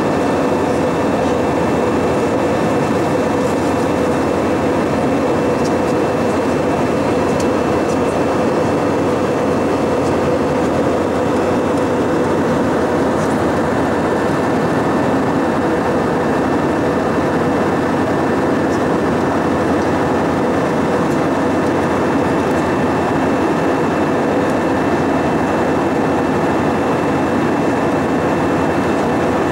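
Airbus A320-232 cabin noise in cruise: a steady roar of airflow and engines, with a few faint steady whining tones and no change throughout.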